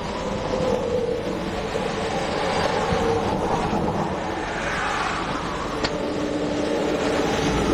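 Highway traffic passing at speed: tyre and engine noise of vehicles going by, swelling in the middle and easing off.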